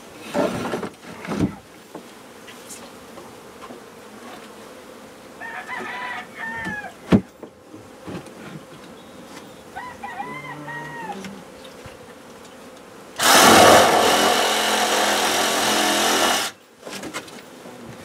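Honey bees buzzing around an opened hive, with a rooster crowing twice in the middle, a single sharp knock, and a loud rushing noise lasting about three seconds near the end.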